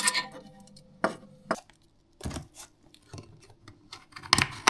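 Scattered light clicks and knocks of hand work on hardware: a few sharp taps through the middle, then a louder clatter of hard plastic near the end as hands work the clear plastic case of a xenon projector lamp.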